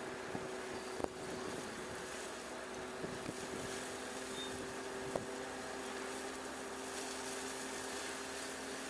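Wood-chip trailer unloading by its hydraulic chain floor conveyors: a steady engine-and-hydraulic drone over the rush of chips spilling out of the rear. A few sharp knocks stand out, the clearest about a second in and about five seconds in.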